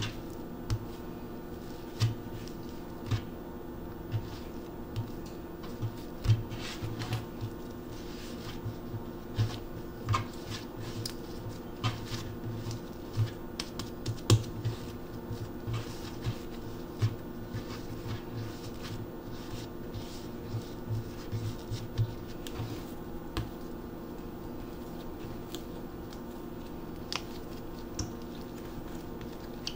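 Hands shaping pieces of soft bread dough into balls on a wooden cutting board: irregular soft thumps, taps and light scuffs as the dough is pressed and tucked against the board, busier at first and sparser after about two-thirds of the way in, over a steady low hum.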